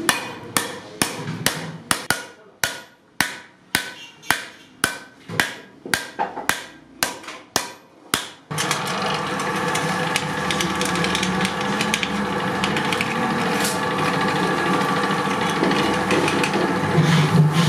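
Hand hammer striking a round iron-sheet disc on a metal block, about two sharp blows a second, dishing the disc for a milk can's end. About eight seconds in this cuts abruptly to the steady running noise of a belt-driven sheet-metal rolling machine.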